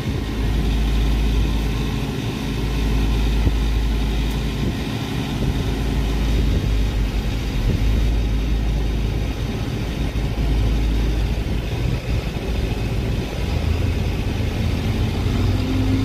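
Case IH 1680 combine's six-cylinder diesel engine running steadily, heard from inside the cab, with the threshing machinery being engaged and the rotor brought up to speed.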